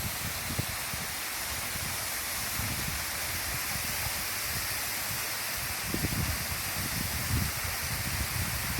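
Waterfall rushing steadily, a constant hiss of falling water. Brief low rumbles come and go underneath, strongest about six to seven seconds in.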